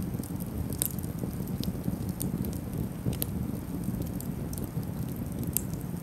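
Open wood campfire burning, crackling and popping. Sharp pops come at irregular intervals over a steady low rumble, the loudest about a second in, near the middle and near the end.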